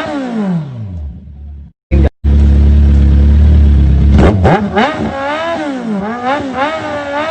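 Kawasaki 1000 motorcycle engine breathing through an SC-Project CR-T titanium exhaust, revved from idle. A rev dies away in the first second and a half and the sound cuts out briefly. Then comes a loud low rumble for about two seconds, followed by a string of about five quick throttle blips, each rising and falling in pitch.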